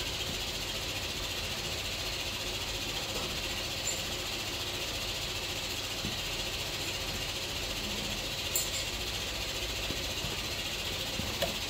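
Steady background hiss, with a couple of faint clicks about four and eight and a half seconds in.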